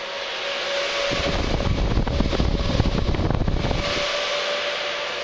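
Cooling fans of a Fossibot F3600 portable power station running hard under more than 1000 W of solar charging: a steady rushing hiss with a faint whine, not quiet. From about a second in until about four seconds in, a loud fluttering low rumble rises under it.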